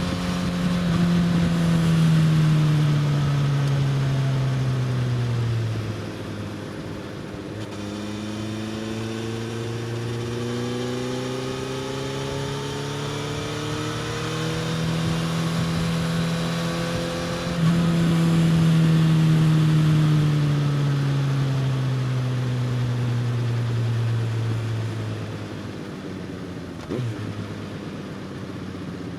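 Suzuki GSX-S1000's inline-four engine through an Austin Racing slip-on exhaust, heard from on board. Revs fall off the throttle for the first few seconds, climb slowly under acceleration, then fall again for a long stretch about two-thirds through and stay low, with a short knock near the end.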